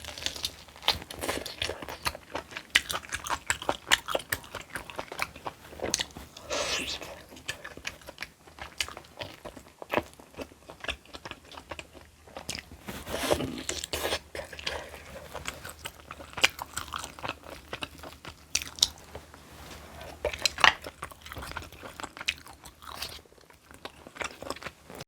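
Close-miked eating: crisp vegetables crunched and chewed, many sharp crunches one after another.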